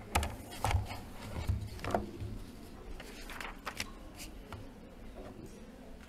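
Irregular knocks and thuds, several sharp ones in the first four seconds, then only faint background.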